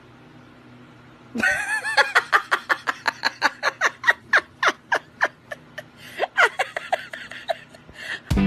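Hard, uncontrollable laughter starting about a second and a half in: a long run of quick "ha" bursts, about four a second, each dropping in pitch, slowing and thinning out near the end.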